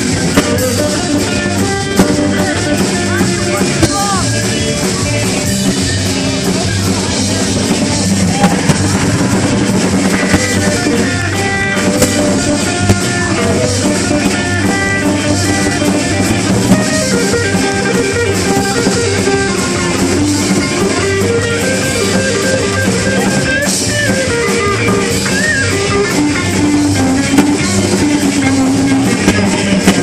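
Live rock band playing: two electric guitars, bass guitar and drum kit.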